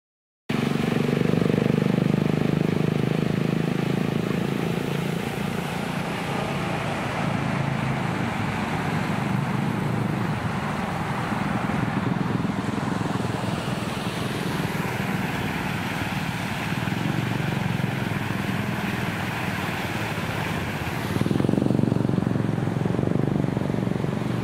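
Outdoor street noise of vehicle traffic: a steady rush with engines running, growing louder about 21 seconds in as a vehicle comes close.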